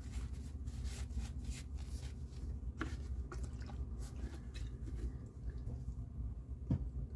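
Paper towel rustling and crinkling in the hands, with soft clicks as a plastic bottle is pressed against it to wet the towel. The rustling is busiest in the first few seconds. A low steady hum runs underneath.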